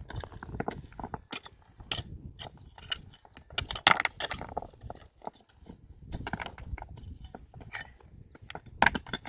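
Irregular clicks, knocks and scrapes of hand work, with a louder knock about four seconds in and another near the end.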